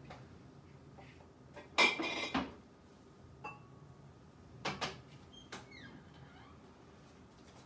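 Glass jars and kitchenware being handled on a counter. About two seconds in comes a loud clattering clink, then a short ringing clink, a knock, and a few light clicks.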